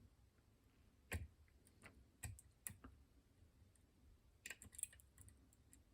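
Faint, scattered metallic clicks and light scrapes of a flag pick working the pins of a West 916 dimple lock under tension, with a small cluster of clicks about four and a half seconds in.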